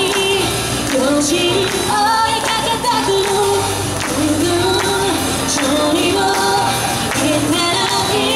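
Female pop vocal group singing into handheld microphones over an amplified pop track with a steady beat.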